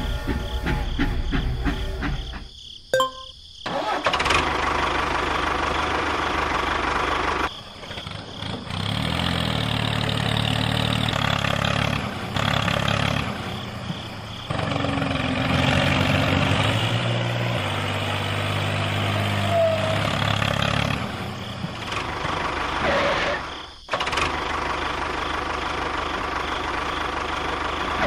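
Vehicle engine running, in several segments cut apart by short breaks about 3, 8 and 24 seconds in.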